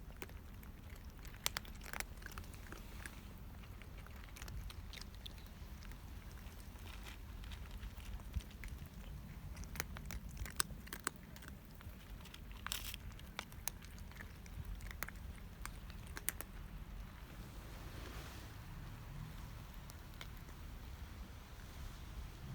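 Cats eating, with irregular crisp crunches of chewing over a steady low rumble.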